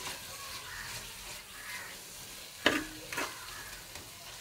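Chopped onion, tomato and green chillies sizzling gently in oil in an earthenware pot while being stirred with a plastic spoon. There are two short clacks of the spoon against the pot about two and a half and three seconds in.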